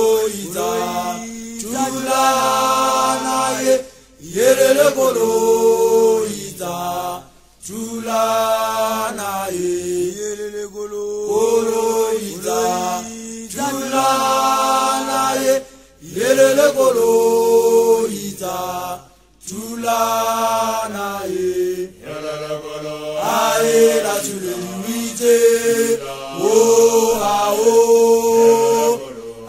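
Traditional Amahlubi initiation chant: voices chanting in phrases a few seconds long, each rising into long held notes, with short pauses between phrases.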